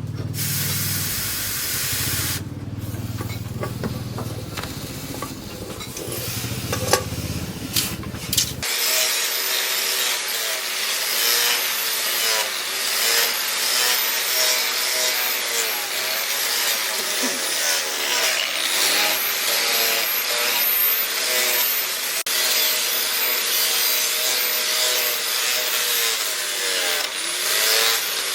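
Electric power tool grinding or sanding, its motor pitch dipping and recovering again and again as the work is pressed against it. The sound changes character about nine seconds in, losing its low hum.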